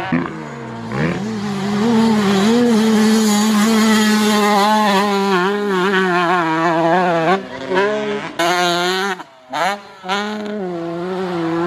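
Motocross dirt bike engine held at high revs, its note wavering up and down as the throttle is worked. The note drops out briefly a few times near the end before picking up again.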